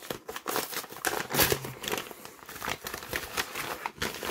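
Kraft paper mailer envelope crinkling and rustling in irregular bursts as it is handled and pulled open by hand.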